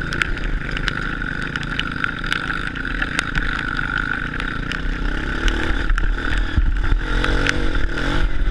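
Honda CRF230 dirt bike's single-cylinder four-stroke engine running under load on a trail ride, the revs rising and falling near the end. Scattered clicks and knocks throughout.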